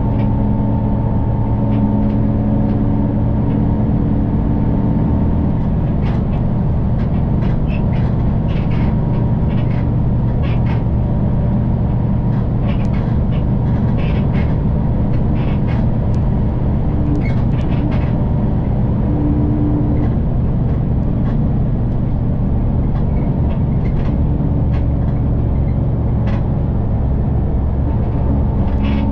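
City bus engine and running gear droning steadily as the bus travels, heard from inside the cabin. The drone's tone changes about five seconds in, and scattered light clicks sound over it.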